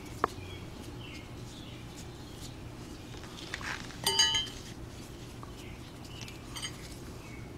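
Metal tools or parts being handled on an engine: a sharp click near the start, then a louder ringing metallic clink about four seconds in and a softer one later, over a faint low steady hum.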